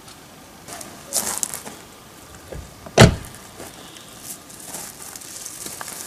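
A brief rustle a little over a second in, then a car door shutting with one solid thump about three seconds in.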